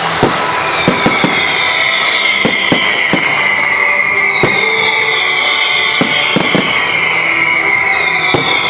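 Fireworks going off in a run of sharp bangs and crackles over loud show music, with a high falling tone repeating about every second and a half.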